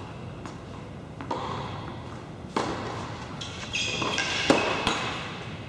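Tennis ball bounced a few times on an indoor hard court, then struck hard by a racket on a serve about four and a half seconds in, the loudest sound, echoing in the hall. A short high squeal comes just before the serve.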